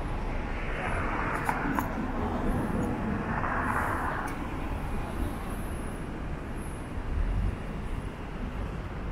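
Steady city street ambience of road traffic hum, with two short swells of noise about one second and three and a half seconds in.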